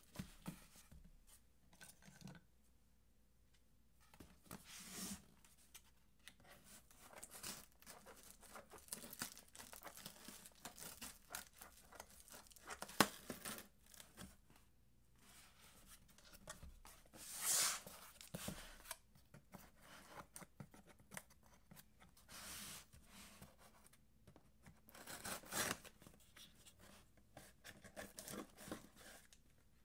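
Scissors cutting and prying at packing tape on a cardboard shipping box, with tape ripping, cardboard scraping and the knocks of the box being turned and handled, in irregular bursts. One longer rip comes a little past halfway.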